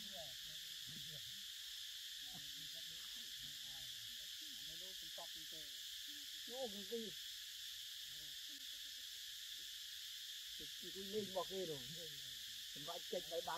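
Steady high drone of forest insects, with faint wavering low calls now and then, most clearly about six seconds in and again near the end.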